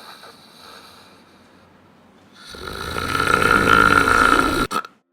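A person snoring: a faint snore, then a long loud one that swells over about a second and cuts off suddenly near the end.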